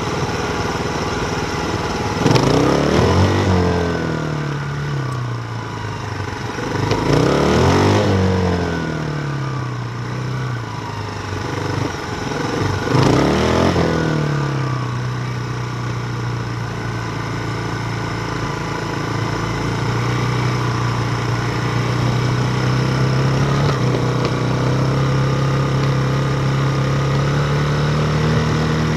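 Motor vehicles passing on a nearby road: three loud pass-bys a few seconds apart, each dropping in pitch as it goes by, then a steadier engine that rises slowly and drops near the end. Underneath is a constant noise of bicycle tyres rolling on gravel.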